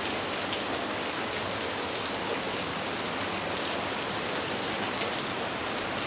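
Steady rain falling, with a few single drops standing out from the hiss.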